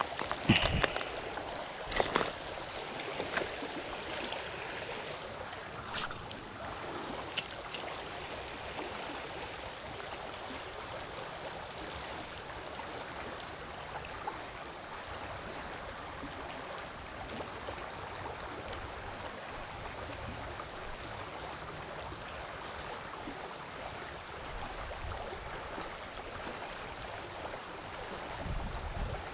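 Steady rushing of flowing creek water, with a few sharp knocks in the first few seconds. Wind buffets the microphone in low rumbling gusts, strongest near the end.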